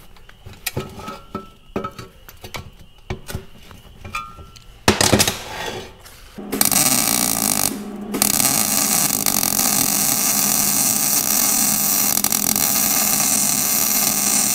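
Light metal clinks and taps from locking pliers working inside an off-road muffler, a loud burst of noise about five seconds in, then a steady hissing buzz from a TIG welding arc as the muffler's internal baffles are welded in, broken off briefly near eight seconds.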